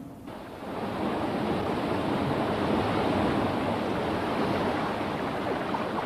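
Stream water rushing over a small fall and around rocks, a steady rushing noise that swells up within the first second.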